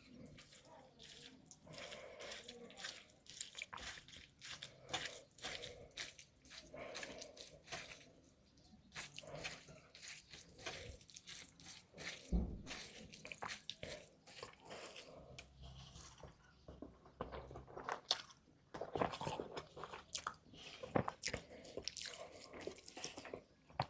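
Close-miked eating: biting into and chewing crunchy food, with wet crackling and smacking bites coming irregularly. A single dull low bump about halfway through.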